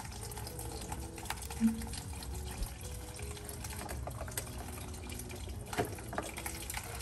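Windshield washer fluid running out of the washer reservoir's pump opening into a small catch pan, the pump just pulled from its seat. A couple of brief knocks from the parts being handled, one about a second and a half in and one near the end.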